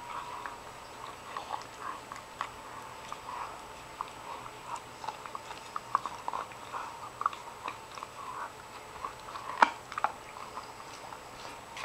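An Akita dog gnawing and chewing a small, worn-down dried hoof chew: irregular crunching and clicking of teeth on hard hoof, with one sharper crack near the end.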